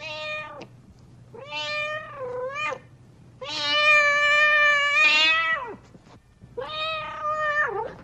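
A mother cat meowing four times to call her kittens, in drawn-out calls. The third call is the longest, about two seconds, and the second dips in pitch in the middle.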